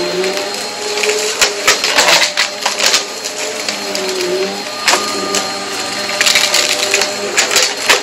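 Vacuum cleaner running over a rug, its motor humming steadily with a pitch that dips now and then. Over the hum come irregular sharp crackles and pops as it sucks up crunchy dirt and carpet freshener.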